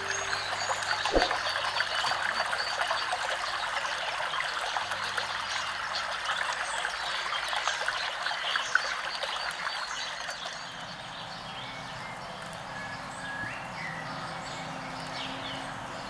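Shallow stream trickling, a steady rush of water, turning quieter about ten seconds in.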